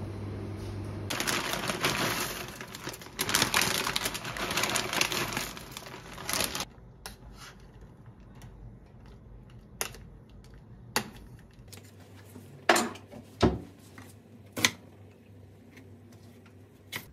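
A few seconds of loud, dense rushing noise that stops abruptly, then a metal spoon clinking sharply against a stainless steel pot of pasta on the stove, about five separate clinks.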